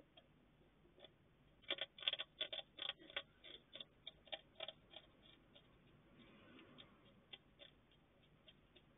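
A hedgehog crunching dry food from a plastic dish: a quick run of faint, sharp crunches and clicks from about two to five seconds in, then scattered single clicks.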